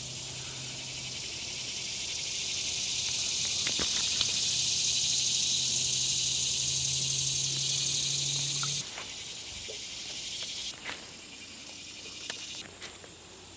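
Steady, high insect buzzing that swells, then cuts off suddenly about nine seconds in, followed by a few faint clicks and taps.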